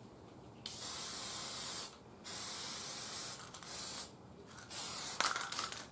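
Urethane lacquer being sprayed on: a hissing spray in four bursts, two of about a second each followed by two shorter ones.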